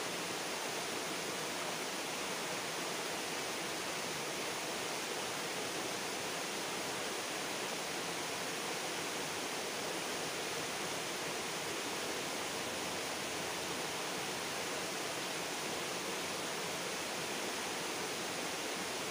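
River water rushing steadily, an even unbroken hiss with no other distinct sounds.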